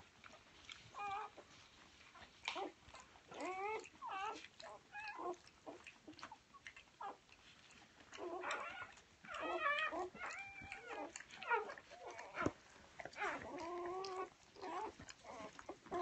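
Newborn golden retriever puppies squealing and whimpering: short, wavering high cries every second or two, busiest in the second half.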